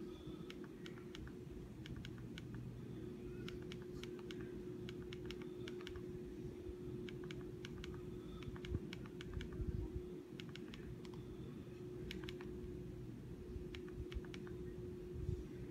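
Buttons on a handheld TV remote control clicking in irregular quick runs, over a steady low hum.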